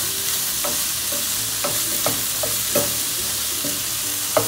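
Cauliflower, carrots and beans sizzling in ghee and oil in a stainless steel frying pan, stirred with a wooden spoon. Over the steady sizzle come irregular scrapes and knocks of the spoon against the pan.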